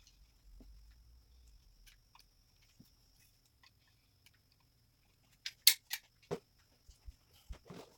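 Scattered light clicks and knocks from hands-on work fitting window trim pieces, with a few louder sharp clicks about five and a half to six and a half seconds in, over a faint steady high whine.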